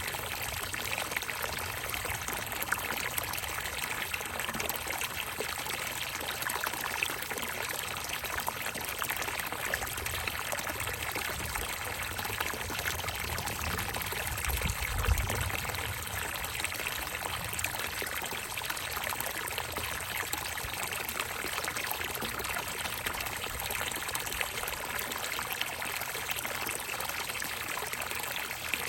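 Water pouring and trickling steadily into a bucket, with a brief low thud about halfway through.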